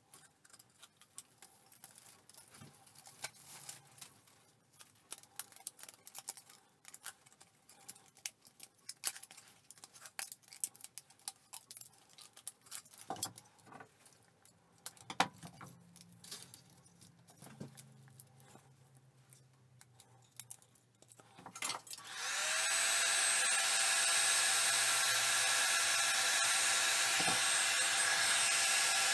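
Light rustling and small clicks of a stiff PET bottle strip being wrapped around wooden bars. About 22 seconds in, an electric heat gun switches on and runs steadily with a high whine, blowing hot air onto the wrapped joint; it is the loudest sound.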